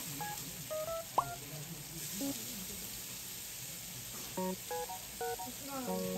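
Playful background music of sparse, short melodic notes, with one quick rising whistle-like sound effect about a second in.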